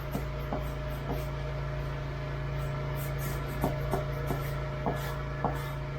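A scrub brush scraping a door in short strokes, heard as about eight separate knocks and scrapes, several bunched in the second half. Beneath them runs a steady low machine hum.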